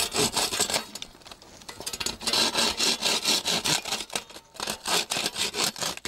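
Blue bow-frame hand saw cutting through a bamboo rod of a beehive frame, in quick back-and-forth rasping strokes. The strokes ease off briefly about a second in, then run in a steady rhythm of a few strokes a second until they stop near the end.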